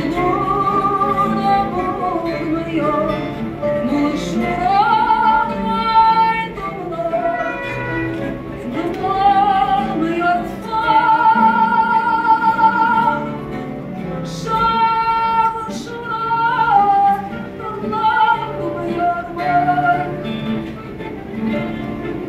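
A woman singing fado with long held notes and a wavering vibrato, over plucked guitar accompaniment.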